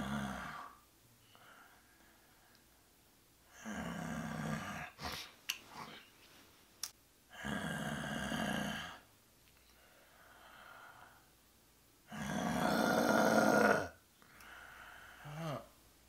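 A man snoring: three long, rasping snores a few seconds apart, with quieter breaths between and a few small clicks near the middle.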